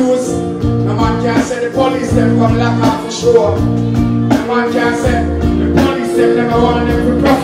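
Live band music: a deep bass line changing note about every second, keyboard chords and electric guitar over a steady drum beat.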